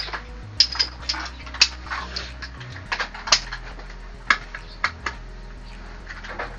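Metal parts and hand tools clinking and tapping while a Suzuki Multicab transmission is being reassembled: about a dozen sharp clicks at irregular intervals.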